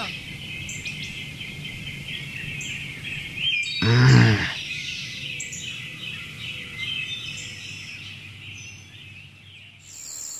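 Outdoor ambience of birds chirping over a soft steady hiss. About four seconds in there is one brief, louder, low-pitched sound.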